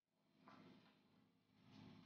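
Near silence, with two faint short sounds, one about half a second in and one near the end.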